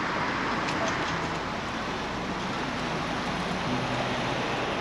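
Steady distant rumble of a SpaceX Falcon 9's first-stage Merlin engines during ascent.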